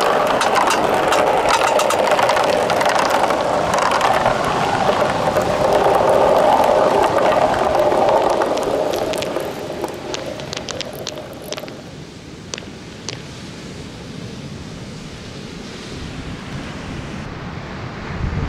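A run of small balls rolling down a rain-gutter track, a steady rumble with clicks as they knock together. The rumble dies away about ten seconds in, leaving a few scattered knocks and a quieter wash.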